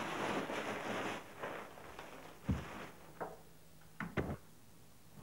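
Rustling of a bag being handled for about a second, then a few soft knocks and thumps.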